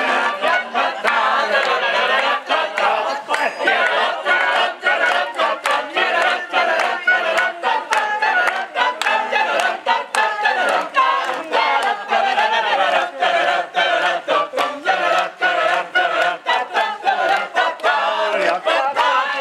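A crowd of mixed voices singing a birthday song together, clapping along in time at about two claps a second.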